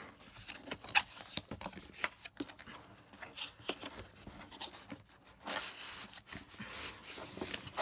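Cardboard packaging handled by hand: flaps opening and an inner cardboard box scraping and sliding against its outer sleeve, with scattered taps and rustles, and longer rubbing slides near the end.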